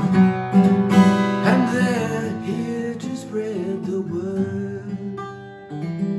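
Acoustic guitar played solo. A few strummed chords come in the first second, then picked notes that gradually die away, and a fresh chord is struck near the end.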